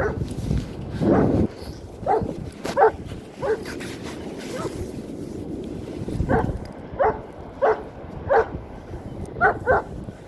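A dog barking repeatedly in short, evenly spaced barks about every two-thirds of a second, with a pause of over a second near the middle. A low rumble is heard under the first barks.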